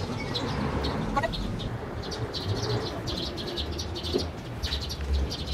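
Small birds chirping over and over over a low, steady rumble of city street ambience, with a short falling trill about a second in.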